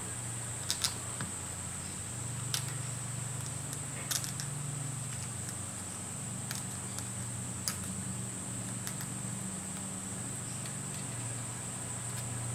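A few scattered light clicks and taps from fingers handling a paper gasket and the small steel studs on a model steam engine's cylinder, over a steady low hum and a constant high-pitched whine.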